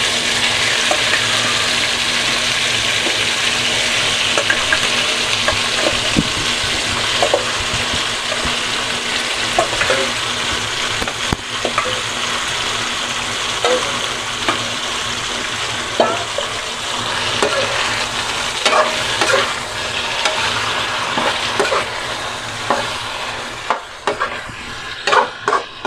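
Raw chicken pieces sizzling as they are sautéed in hot vegetable oil with garlic and onion in a nonstick frying pan, with scattered clinks of a metal spoon against the pan and bowl. The sizzle quietens near the end as the pieces are stirred.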